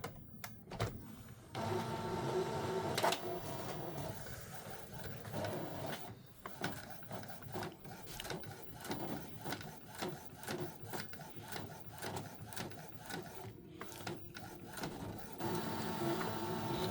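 Epson EcoTank ET-3850 inkjet printer printing a test pattern: short runs of motor whine from the moving mechanism, with many clicks and ticks in between.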